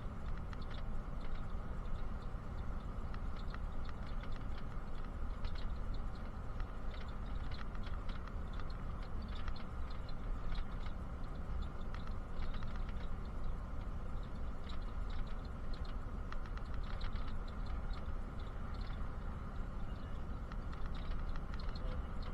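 Interior of a moving bus: a steady low rumble of engine and road noise, with frequent light, irregular clicks and rattles.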